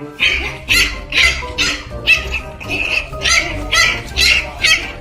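A dog barking and snarling in quick bursts, about two a second, over a low growl: an angry dog, worked up enough to bite. Background music plays underneath.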